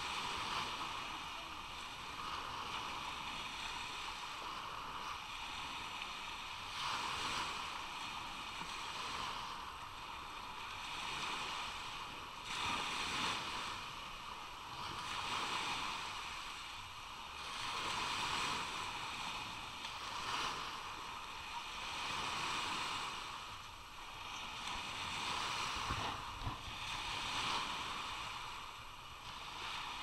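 Small sea waves breaking and washing up a sandy beach, swelling and fading every few seconds.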